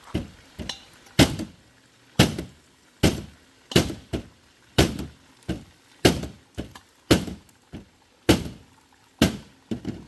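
A steady run of sharp, heavy knocks, a little over one a second, about fourteen in all.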